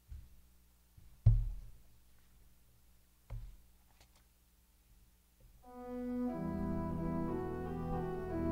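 A few low thumps at the ambo microphone, the loudest about a second in. About five and a half seconds in, an organ begins the introduction to the responsorial psalm, playing sustained chords that swell in.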